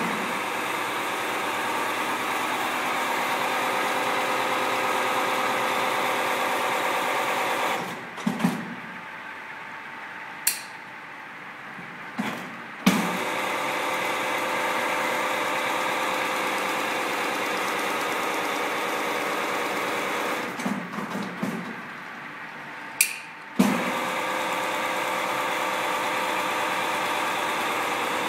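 Chain-link fence weaving machine running with a steady motor hum. It stops twice, about 8 and 20 seconds in, and a few sharp metallic clicks and knocks come in the pauses; each time it starts up again with a knock.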